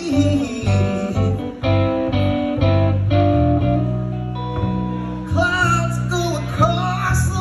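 Live blues band playing: electric guitar picking held single notes over electric bass, with a drum kit behind.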